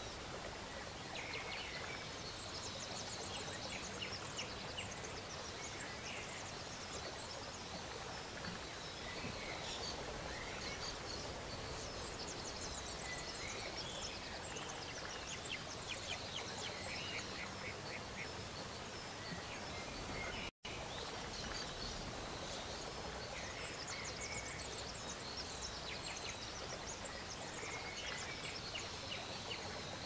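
Many small birds chirping and twittering over a steady background hiss, with short repeated high trills throughout. The sound drops out for a split second about two-thirds of the way through.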